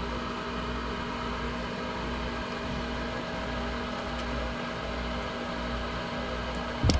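Goodman furnace on a call for heat, its draft inducer motor running with a steady hum. One sharp knock comes near the end.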